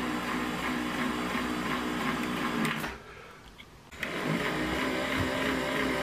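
Casdon toy washing machine's small electric motor turning the drum with a steady whirring hum. The hum cuts out for about a second, about three seconds in, then starts again.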